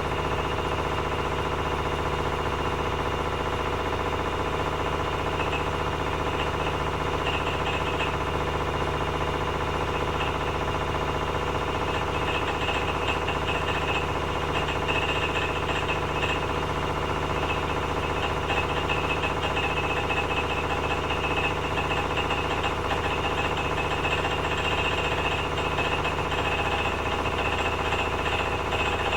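Privileg 9515 Sensation washing machine spinning at 900 rpm: a steady motor hum with a fast, continuous knocking from inside the machine, and a higher rattle that grows stronger from about twelve seconds in. The owner hears the knock only with laundry loaded; the drum has no play, so its cause is unknown.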